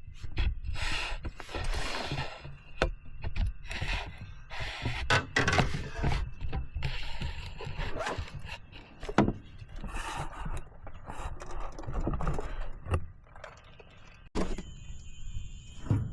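Irregular knocks, thunks and scrapes of gear being handled in a small fishing boat. Crickets chirp with steady high tones after a sudden break near the end.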